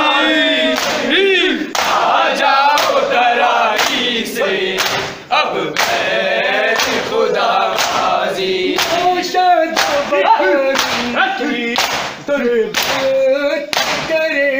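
Men's voices chanting a Shia nauha lament in chorus, over rhythmic matam: open hands striking bare chests in a steady beat.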